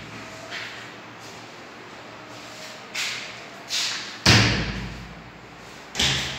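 A series of sharp thuds or knocks, about five, echoing in a bare room. The loudest comes just past the middle.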